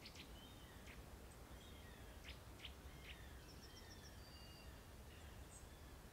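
Faint outdoor ambience with small birds chirping: scattered short, high chirps and whistles, including a quick run of four or five notes about three and a half seconds in, over a low steady hum.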